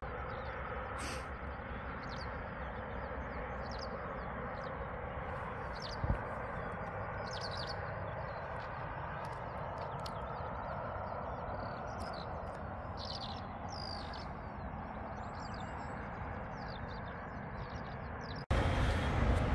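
Small birds chirping repeatedly over a steady rushing background, with one low thump about six seconds in. Near the end the sound cuts abruptly to a louder rushing noise.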